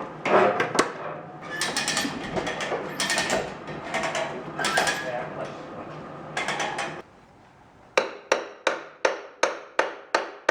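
Metal parts clinking and scraping as they are handled. Then, from about eight seconds in, a steady run of sharp hammer strikes, about three a second, tapping a pulley onto a lawn mower engine's crankshaft. The pulley is not seating fully because the old key is still in the shaft.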